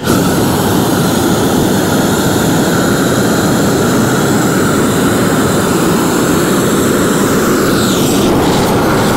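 Propane roofing torch burning steadily and loudly, its flame heating the underside of a torch-down membrane roll and the roof surface to melt the bitumen so the two layers bond.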